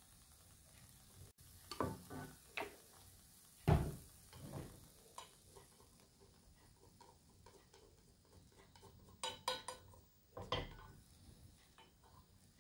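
Wooden chopsticks knocking and scraping against a nonstick frying pan as soft-scrambled omelette eggs are pushed and gathered, with a few heavier knocks as the pan is lifted and set back on the stove's grate. The loudest knock comes a little under four seconds in. A faint sizzle of eggs cooking over low heat runs underneath.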